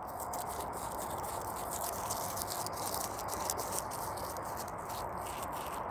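Dried Tithonia seed head being crumbled between the fingers: a steady run of small, dry, irregular crackles as seeds and chaff are rubbed loose and fall into the palm.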